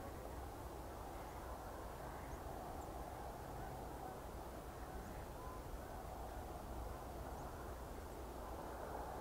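Steady outdoor background noise with a low rumble underneath, and a few faint, short bird calls.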